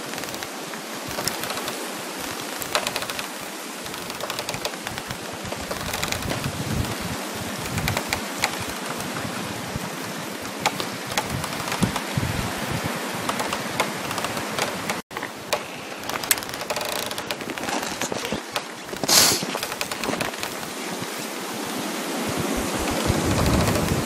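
Frost crackling in a dense, continuous run of tiny clicks over the rustling hiss of wind in trees. One louder, sharp crackle comes about three-quarters of the way through, and there is a momentary drop-out a little past halfway.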